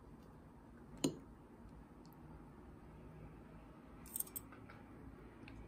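A metal fork knocking once against a glass plate about a second in, then a quick run of three or four light clicks of the fork on the glass just after four seconds, as it spears fig and burrata.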